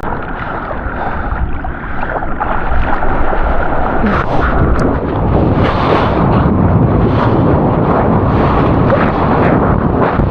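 Breaking surf and rushing whitewater right at a GoPro action camera, with water and wind buffeting the microphone. It grows louder about two seconds in and stays dense and crackling.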